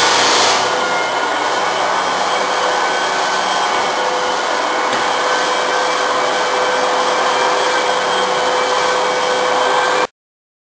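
Floor sander running steadily on an oak floor: a loud, even whirring with a constant hum in it, cutting off suddenly near the end.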